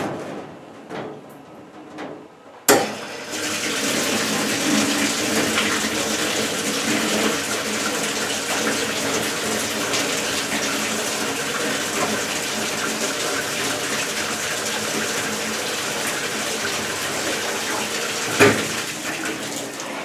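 Jackson Conserver XL-E commercial dishwasher pre-filling its tank: water starts rushing in suddenly about two and a half seconds in and pours steadily from then on. A sharp click comes near the end.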